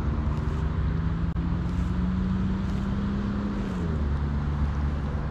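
Motor vehicle engine droning past over a low rumble, its pitch dropping a little about four seconds in as it goes by.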